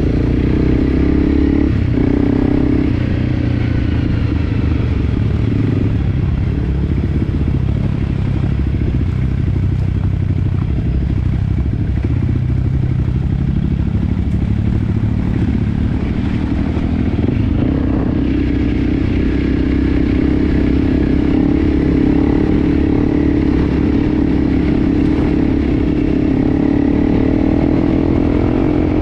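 Enduro dirt bike engine running continuously under way. Its note sags about halfway through, then climbs again as the throttle opens.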